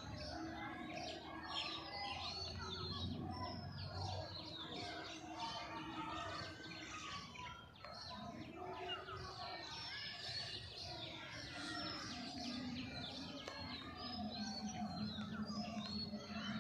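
A chorus of many birds chirping and calling at once, with overlapping short calls and trills throughout. A low hum comes and goes underneath.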